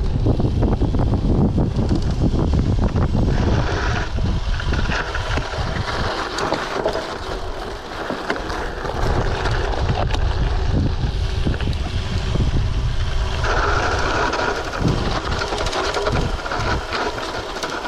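Wind buffeting the action-camera microphone on a moving gravel bike, over the rolling noise of its 38 mm WTB Riddler tyres on a dirt trail. Short knocks and rattles come through as the bike goes over bumps.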